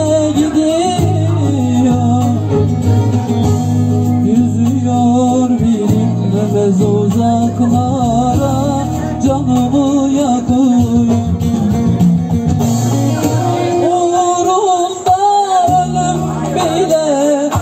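Live Turkish folk (türkü) music: a bağlama (saz) melody, wavering and ornamented, over electronic keyboard accompaniment with steady low sustained notes, played loud through a PA.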